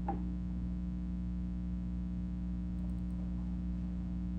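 Steady low electrical mains hum, with one faint click right at the start.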